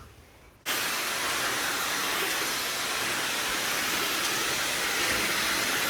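A steady, even hiss starts suddenly about half a second in and holds without change.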